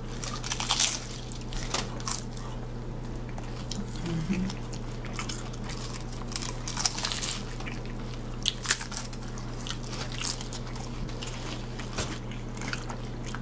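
Close-up crunching and chewing of nacho-cheese hard taco shells: crisp bites and crackles come in irregular clusters every second or two over a steady low hum.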